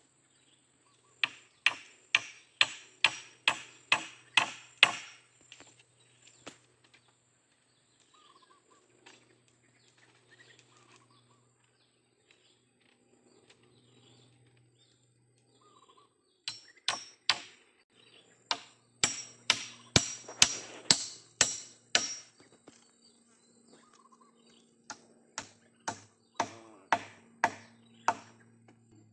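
A metal hand tool striking a wooden pole in quick runs of blows, about three a second, with a slight metallic ring: about ten blows a second into the clip, a longer run in the middle and a shorter one near the end.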